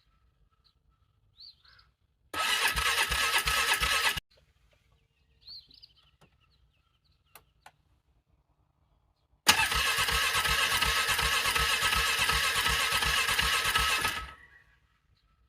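Engine being cranked over by its starter in frigid cold, struggling to start: a cranking burst of about two seconds that cuts off, a pause with two small clicks, then a longer burst of about five seconds. The engine does not catch.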